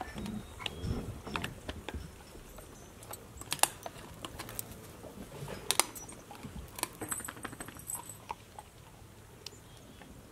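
Dogs gnawing raw meaty bones: scattered sharp cracks and clicks of teeth on bone, a few standing out loudly, with light clinks of metal tie-out chains.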